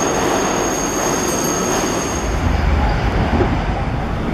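Subway train running through a station, with a steady high-pitched squeal from the wheels over the rumble of the cars. About two seconds in the squeal stops and a deeper rumble takes over.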